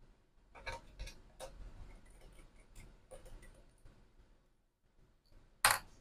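Small metallic clicks and ticks as a Torx screwdriver works the tiny screws of a 2014 Mac Mini's inner metal cover plate, most of them in the first second and a half. One much louder sharp click comes near the end as the plate is handled.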